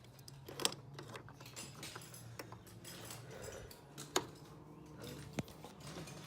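Small metal parts being handled during engine-bay work: a few sharp clicks and clinks, the loudest about half a second in and just after four seconds, over a low steady hum.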